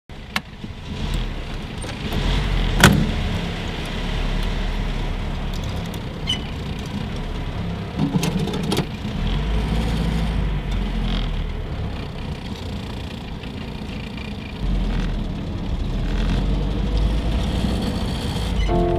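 Engine of a classic car running, heard from inside the cabin as a steady low rumble that swells and eases, with a few sharp clicks and knocks, the sharpest about three seconds in.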